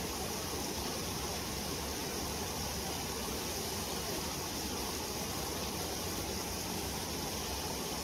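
Steady, unchanging rush of a mountain stream, with a constant high hiss above it.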